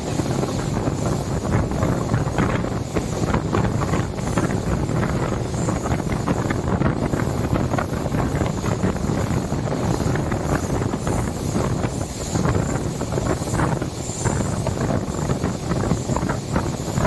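Express passenger train running at speed: a steady rumble and rattle of wheels on the rails, with wind rushing over the microphone.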